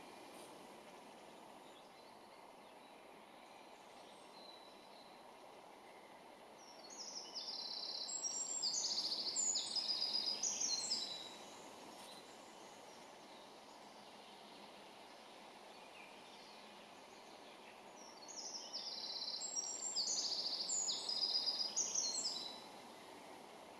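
Eurasian wren singing two songs about ten seconds apart, each around four seconds of fast, high, trilling notes, over a steady low background noise.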